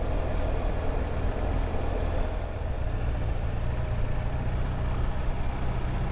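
BMW touring motorcycle on the move, its engine running steadily under road and wind noise, heard from a helmet-mounted camera.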